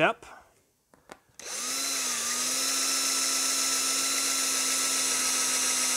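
Cordless drill turning a titanium-coated step drill bit through a clear plastic sheet, enlarging the hole to the next step. The motor starts about a second and a half in and runs at a steady whine, dipping slightly in pitch just after it starts.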